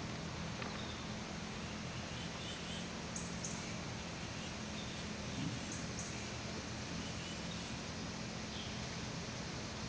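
Steady outdoor background noise with a low hum, and a few faint, short high chirps scattered through it.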